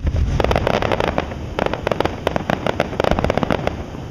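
Aerial fireworks: a shell bursts with a sharp bang at the start, then a rapid run of crackling pops for about three and a half seconds that dies away near the end.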